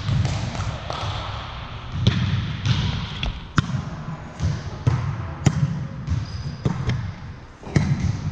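Volleyball play in a gym hall: a series of sharp ball smacks at irregular intervals, each followed by a short echo off the walls.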